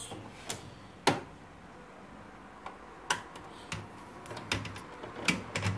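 Scattered sharp clicks and light knocks from hands working on the plastic and metal parts around a Samsung SCX-4623 laser printer's fuser unit while its retaining screws are taken out. There are about seven of them, and the loudest comes about a second in.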